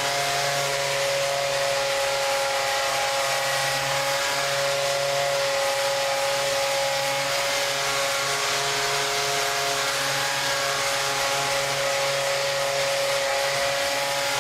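Handheld Rapid Release vibration therapy device running steadily at one pitch, a constant motor whine, as it is worked over tight calf muscles.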